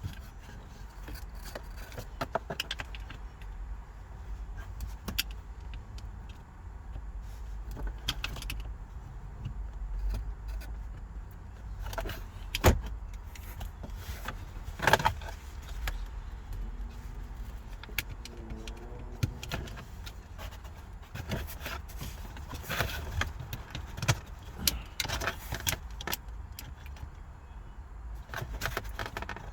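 Irregular clicks, rattles and knocks of tools and loose parts being handled while a car's gear shifter and console are taken apart, over a low rumble. Two louder knocks come near the middle.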